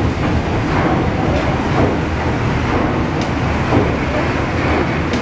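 PS Waverley's 1946 Rankin & Blackmore triple-expansion steam engine running, its cranks and connecting rods turning with a steady mechanical churning. Heard close up in the engine room.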